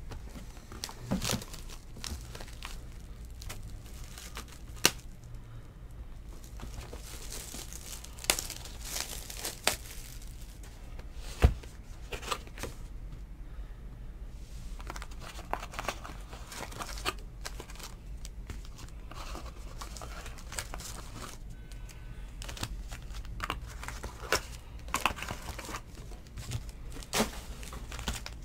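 Plastic wrap being torn off a box of trading cards, then foil card packs crinkling as they are pulled from the box and stacked, with a few sharp taps among the rustling.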